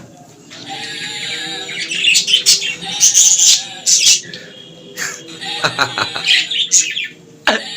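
Cockatiels squawking and chirping in a busy run of short, harsh, high calls.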